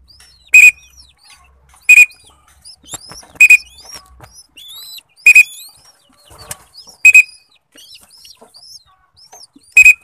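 U3 pigeon-training whistle blown in six short, sharp blasts, each a high steady tone, about every one and a half to three seconds: the signal that marks feeding, so the squab learns to come to the whistle for free-fly training. Between the blasts a young pigeon gives faint squeaky begging peeps.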